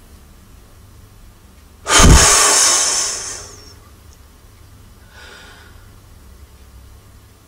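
A woman blowing one long, hard breath close to the microphone, as if blowing out birthday candles: a sudden gust about two seconds in that lasts about a second and a half and trails off. A much softer breath follows a few seconds later.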